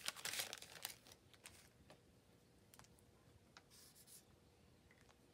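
Plastic sticker packaging crinkling and clicking as it is handled in the first second, then a few faint ticks and a brief soft rustle about four seconds in, otherwise near quiet.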